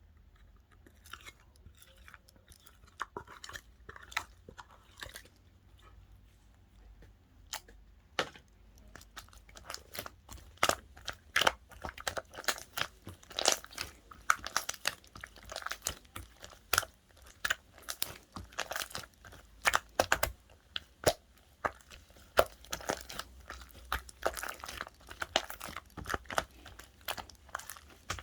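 Pink marbled slime being squeezed and pressed by hand, giving irregular sharp pops and crackling clicks. The pops are faint and sparse at first, then come thick and louder from about nine seconds in.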